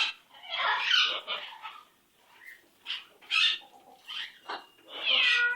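Pet parrot making a string of short, harsh squawks and chatters, ending in a call that slides down in pitch.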